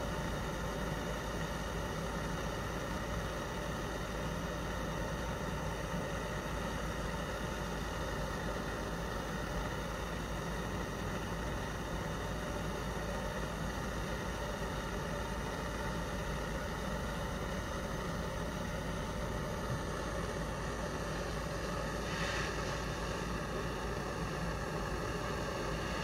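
Gas torch flame burning with a steady hiss as it is held against a pomegranate's skin, with a short louder hiss near the end.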